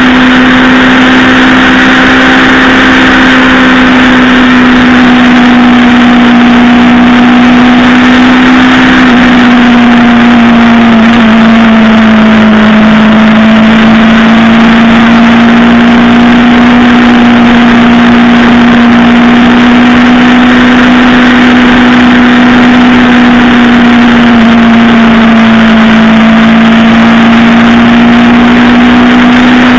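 Aprilia Tuono 125's single-cylinder four-stroke engine running steadily at a moderate cruise. Its pitch dips slightly twice as the throttle eases and picks back up.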